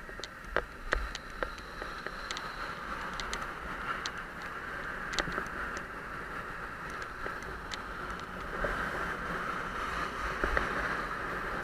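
Steady wind noise on the microphone and tyre hiss of a bicycle rolling along an asphalt road, with scattered sharp ticks and rattles from the bike.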